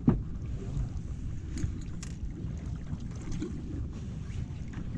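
Wind buffeting the microphone over a steady low rumble of water against a small boat's hull, with one sharp knock at the very start.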